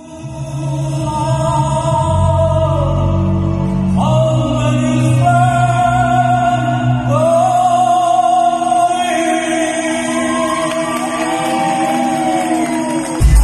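A slow ballad: a man singing into a microphone over a backing track of sustained, choir-like chords, with long held notes and one wavering held note near the end.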